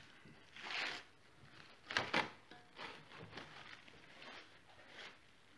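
Quiet kitchen handling sounds: a soft rustle, then two sharp knocks about two seconds in as a stainless steel mixing bowl of dough is set down on the counter, followed by a few faint light ticks.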